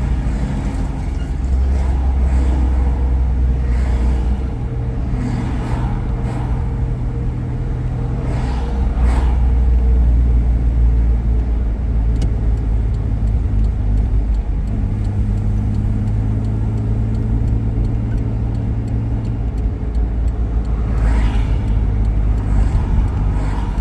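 Car being driven: steady engine and road noise, the engine's low hum shifting in pitch several times as the speed changes.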